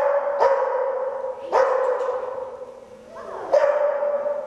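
A dog barking excitedly, about four loud barks, each ringing on and fading in the echo of a large hall.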